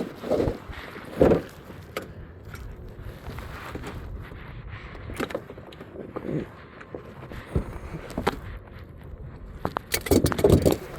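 Irregular metallic clinks, scrapes and knocks of hand tools and parts being handled during a car battery change. The louder knocks come about a second in and again near the end.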